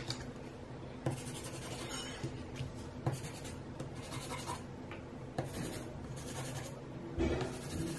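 Derwent burnisher pencil rubbed on paper in several short, scratchy strokes a second or two apart, cleaning colour off its tip.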